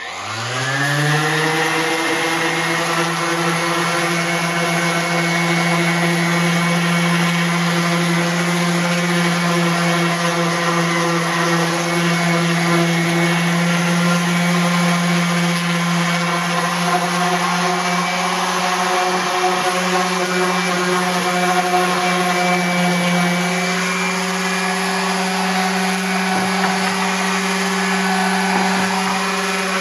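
Random orbital sander spinning up with a quick rise in pitch, then running steadily with an 80-grit disc sanding a wooden longboard deck: a constant motor hum over the hiss of the paper on the wood. Its pitch steps slightly higher about three-quarters of the way through.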